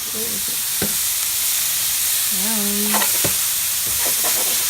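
Vegetables stir-frying in a hot pan: a steady sizzle with stirring, and a couple of sharp knocks.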